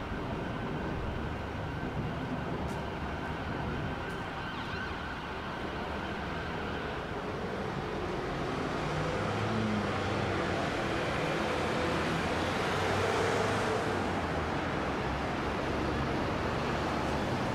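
City road traffic: engines and tyres of passing cars and heavy vehicles, including a double-decker bus. The sound builds in the second half as the larger vehicles come close.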